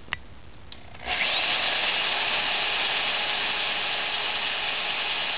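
Electric drill with a 1/4-inch bit starting up about a second in, its motor whine rising quickly to speed and then running steadily as it bores out a hole in a metal bracket.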